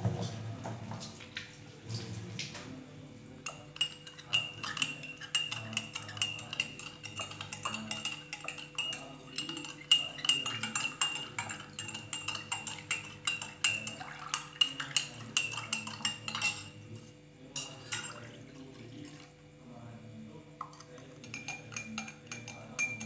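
Metal spoon stirring in a glass, clinking rapidly against the sides with a faint ringing, most densely from about four seconds in to about sixteen seconds, then in sparser knocks. This is typical of sugar being stirred into warm lime water.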